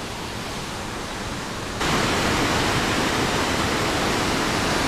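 Steady rush of a waterfall, with no tone in it. About two seconds in it jumps suddenly louder and holds there.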